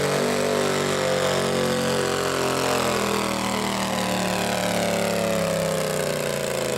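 Modified riding lawn mower engine running hard at steady revs, then slowing, its pitch falling gradually over the second half.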